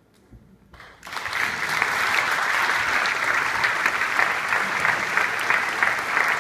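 Audience applause breaking out about a second in after a moment of near silence at the end of a brass band piece, then continuing as steady, dense clapping.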